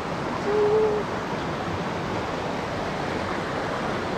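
Steady rush of water flowing in a rocky stream.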